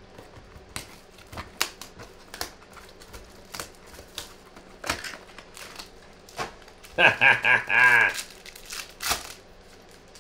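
Plastic wrapper of a trading card pack being torn open and crumpled by hand: scattered sharp crackles and snaps. A man's voice breaks in loudly for about a second, some seven seconds in.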